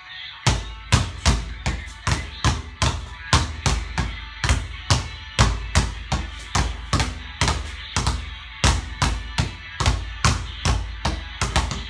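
Two basketballs being dribbled hard, bouncing in an uneven rhythm of about three to four bounces a second: one ball is kept bouncing in front while the other is crossed over continuously.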